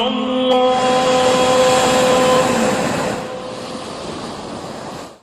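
Closing background music: a long held chanted note over a swelling rush of noise, which eases off about three seconds in, then the audio cuts off abruptly at the end.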